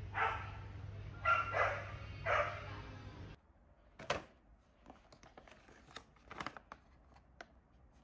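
A small dog barking about four times, in short yaps, over a steady low hum. About three and a half seconds in, barks and hum cut off suddenly, leaving only faint scattered clicks and taps.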